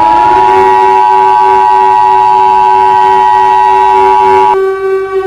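Emergency Alert System two-tone attention signal (853 and 960 Hz) sounding together with a civil defense siren. The siren finishes its rise in pitch in the first moments and then holds steady. The attention tone cuts off suddenly about four and a half seconds in while the siren carries on.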